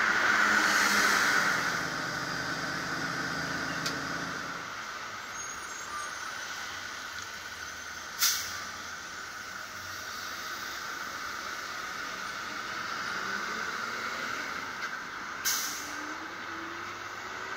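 Vehicle traffic noise: a low engine hum that drops away about four seconds in, then two short, sharp hisses some seven seconds apart, with a faint rising engine tone near the end.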